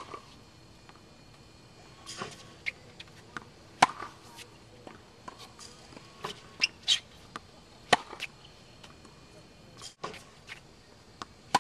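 Tennis racket striking balls fed by a ball machine: a sharp pop about every four seconds, with lighter knocks and taps of balls bouncing on the hard court in between.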